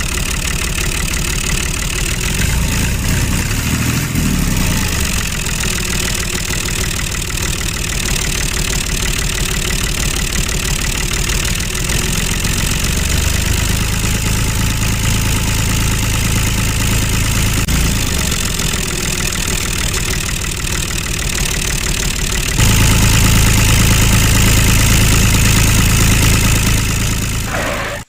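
Tractor engine running steadily with a rhythmic chug. About three quarters of the way through it steps up louder, with a stronger low hum.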